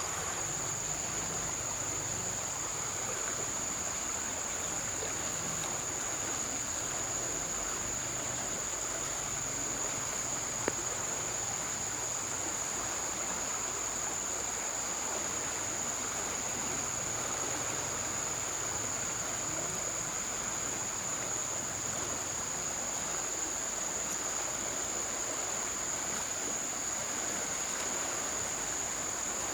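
A steady, high-pitched insect call that does not break, over the even rush of a flowing stream, with a single sharp click about ten seconds in.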